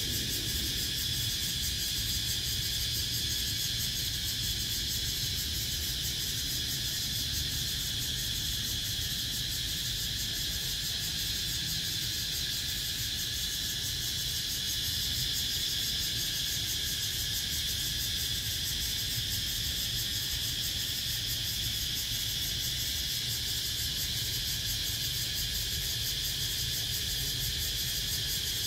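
Cicadas singing in a steady, unbroken high-pitched chorus, over a low background rumble.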